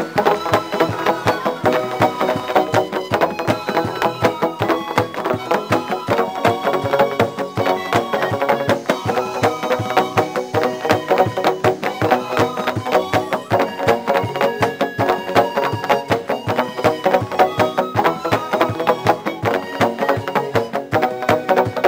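Traditional Solomon Islands bamboo music: many pitched bamboo notes with sharp, knocking attacks played in a quick, steady rhythm.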